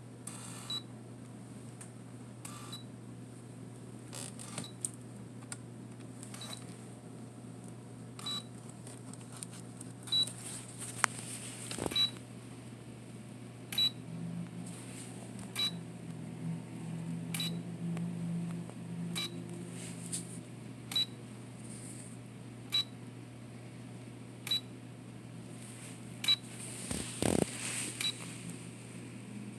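Olympus Camedia C-4040Z digital camera stuck in a low-battery power cycle: a short high beep with a click roughly every two seconds as it keeps restarting and cutting out. For several seconds in the middle there is a low whirr from the lens motor trying to retract the zoom lens.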